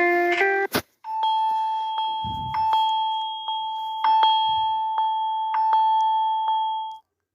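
A mobile-phone ringtone: a single held electronic tone with scattered clicks over it, starting about a second in and cutting off abruptly near the end. Just before it, a plucked-guitar ringtone ends with a click.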